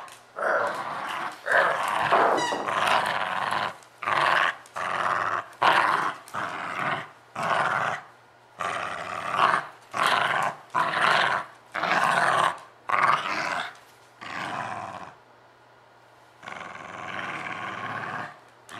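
Puppy play-growling while tugging on a rope toy, in short repeated growls about a second apart. Near the end the growls pause for about a second and a half, then one longer growl follows.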